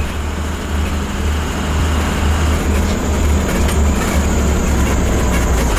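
Steady low rumble of a vehicle on the road, heard from inside the cab: engine and road noise.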